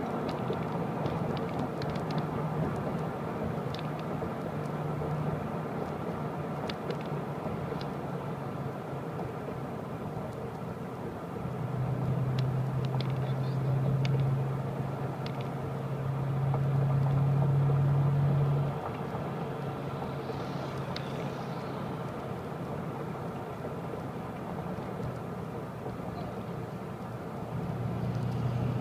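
A car driving along a road, heard from inside the cabin: steady engine and tyre noise, with a deeper hum that grows louder for several seconds about halfway through.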